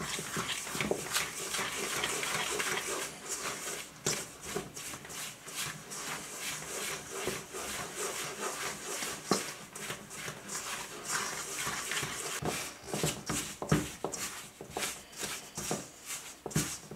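A metal spoon stirring and scraping a crumbly flour, butter and milk mix around a stainless steel mixing bowl, with scattered sharper clicks of the spoon against the metal. This is scone dough being mixed just after the milk goes in.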